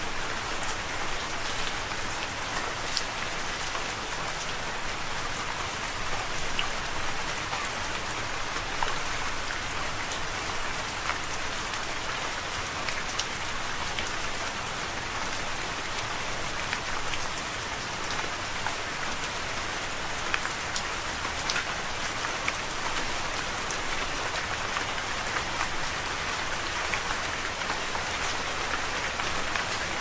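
Steady rain falling: an even hiss with scattered sharp drop ticks throughout.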